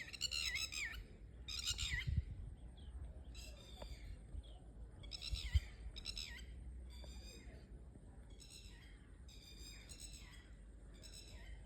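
A bird calling over and over in short, sharp, high notes, a call every half second to a second, growing fainter in the second half. A single thump about five and a half seconds in.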